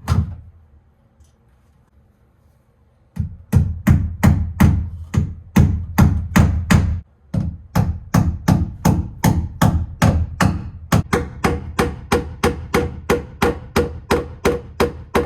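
Hammer blows driving cable staples, a steady run of sharp strikes at about three a second that starts a few seconds in and pauses briefly midway.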